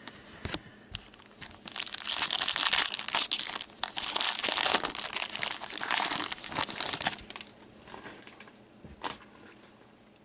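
Foil trading-card pack wrapper being torn open and crumpled by hand, a dense crinkling from about a second and a half in until about seven seconds, then a few light clicks and one sharp tap near the end as the cards are handled.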